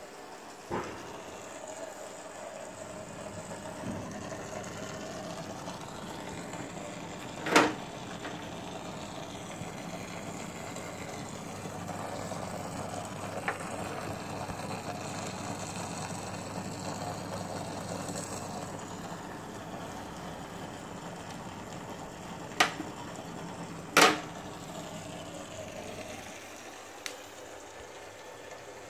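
Aquarium filter pumps running with a steady hum and water moving through them, broken by several sharp knocks.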